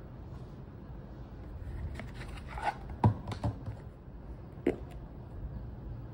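A jewellery presentation box being handled and opened: rustling, then a few sharp clicks and knocks, the loudest about three seconds in and another near five seconds, over a steady low hum.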